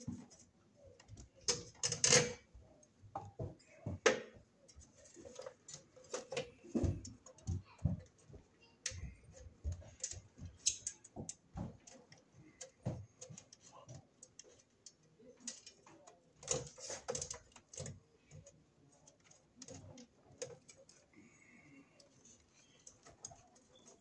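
Irregular clicks, taps and knocks of hands and a tool working parts into a circuit breaker panel while its cover is fitted, with a few louder knocks about two and four seconds in.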